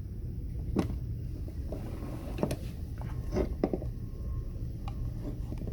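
A few light clicks and knocks from the opened-up iron's parts being handled, over a steady low rumble of background noise.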